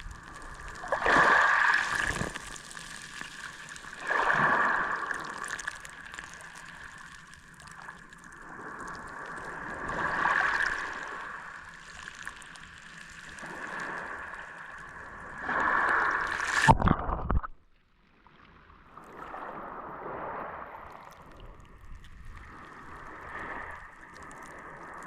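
Mediterranean Sea waves washing onto a beach, swelling and falling back every few seconds over a steady high-pitched whine. About 17 seconds in there is a sharp click and the sound drops out for a moment, then gentler washing follows.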